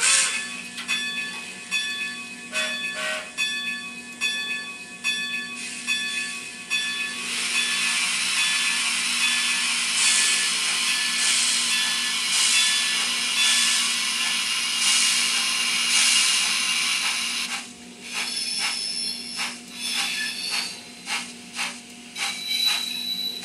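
A LokSound Micro digital sound decoder in an N scale 4-6-2 Pacific model, playing recorded steam locomotive sounds through its small speaker. Rhythmic exhaust chuffs give way to about ten seconds of continuous steam hiss with a slow pulse, then separate chuffs return near the end, over a steady low hum.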